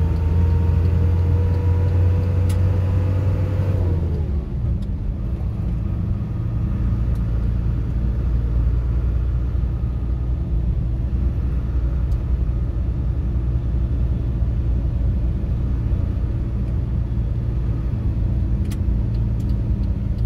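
A car driving on a city road, heard from inside the cabin: a steady low rumble of engine and tyres on the road. For about the first four seconds a whine rises slowly as the car speeds up, then it drops away.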